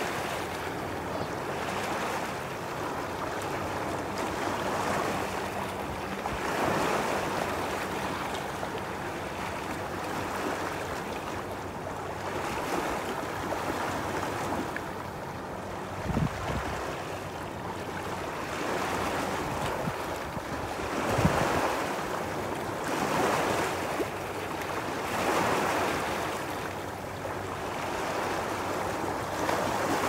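Lake Superior waves washing and splashing against shoreline rock, the surf swelling and falling every few seconds, with some wind. Two sudden low thumps stand out, one about halfway through and another a few seconds later.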